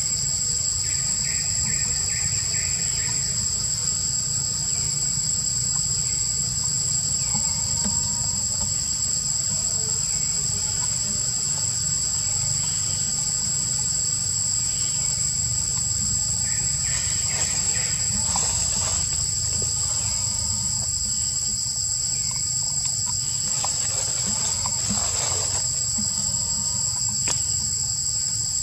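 Steady chorus of forest insects: a continuous high buzz with a thin unbroken tone above it, over a low rumble. A few faint chirps and rustles come and go.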